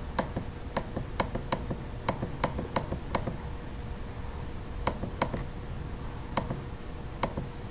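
Computer mouse clicking repeatedly on a calculator emulator's down-arrow key: about a dozen sharp clicks, quick and even for the first three seconds, then a few spaced-out ones.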